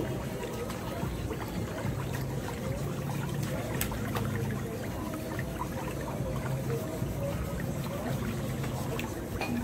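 Whirlpool jets of a pedicure foot-spa basin churning the water steadily.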